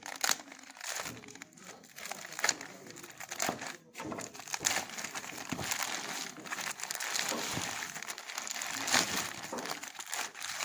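Packaging being handled and unwrapped during an unboxing: continuous crinkling and rustling with many sharp clicks and crackles.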